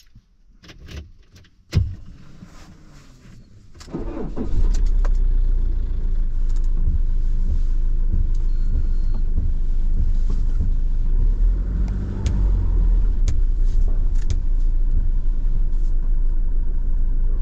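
Iveco Daily van heard from inside its cab. A sharp knock comes about two seconds in, and from about four seconds the van drives off with a loud, steady engine and road rumble.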